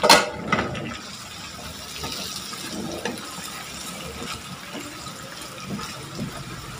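Sauce sizzling in a hot wok as a wooden spatula stirs fried eggplant with sliced peppers and onions, with small scrapes of the spatula on the pan. A sharp knock comes right at the start and a smaller one about half a second later.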